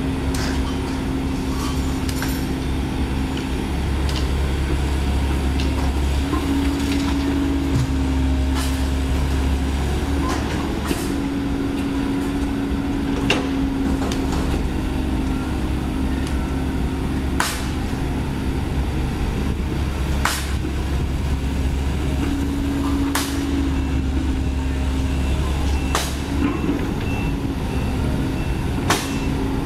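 Komatsu PC130 excavator's diesel engine running under digging load, louder through most of the middle, with sharp clanks of the steel bucket striking soil and debris every few seconds. Near the end, evenly spaced electronic beeps of a reversing alarm start up.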